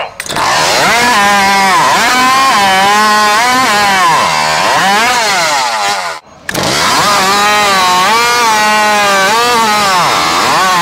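Modified competition chainsaw engine running flat out, its pitch dipping each time the chain loads up in the cut and rising again as it frees. It breaks off briefly about six seconds in, then a saw runs hard again with the same dips and recoveries.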